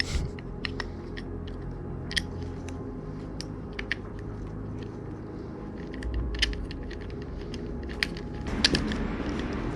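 Scattered light clicks and taps of parts being handled and fitted on a motorcycle by hand, over a steady low hum.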